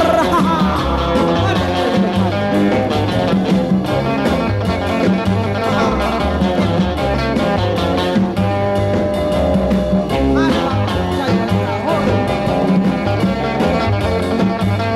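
Background music led by guitar, over a repeating bass line.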